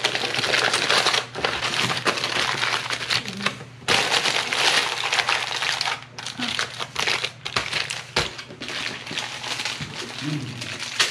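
Wrapping crinkling and crackling in irregular handfuls as it is pressed and crimped around a rack of pork ribs to seal it airtight for the smoker, with a few short pauses.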